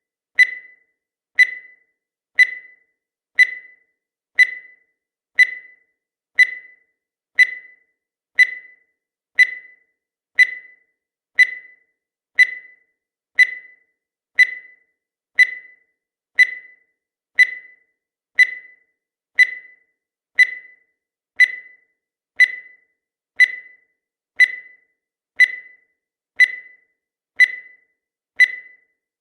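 Countdown timer sound effect: a short, high beep once every second, each one starting sharply and fading fast, in an even unbroken rhythm.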